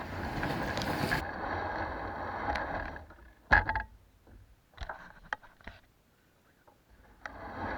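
Fishing kayak and its gear being handled at the water's edge: a scraping rustle for about three seconds, then scattered knocks and clicks on the hull.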